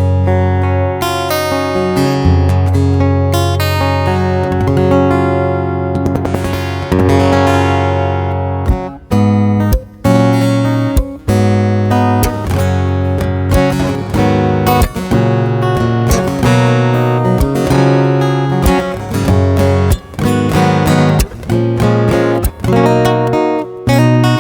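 Headway HJ-V115ASE acoustic guitar being strummed through a chord progression, chords ringing, with short stops between phrases.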